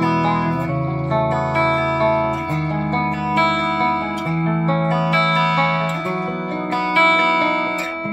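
Solar AB1.6TBS electric guitar played with a clean tone on its bridge humbucker: chords picked out note by note and left to ring, changing every second or two.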